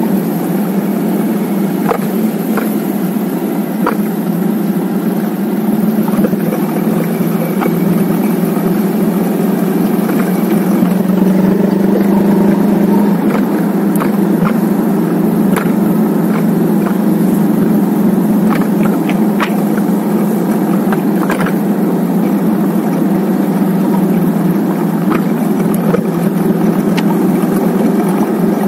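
Cruiser motorcycle engine running steadily at cruising speed, with wind and road noise.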